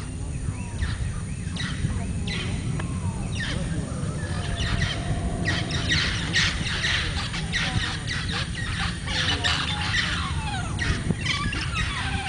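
Forest birds calling in a dense chorus of short chirps and whistles, busiest in the middle of the stretch, over a steady low rumble.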